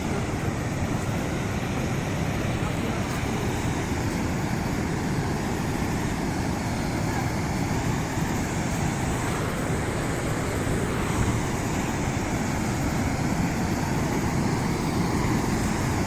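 Steady, unbroken rush of falling water at a waterfall, strongest in its low rumble.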